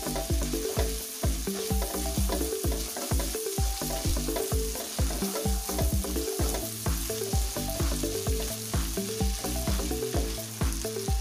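Onions and ginger-garlic paste sizzling in hot mustard oil in a nonstick frying pan while a spatula stirs them. Under it runs background music with a steady beat.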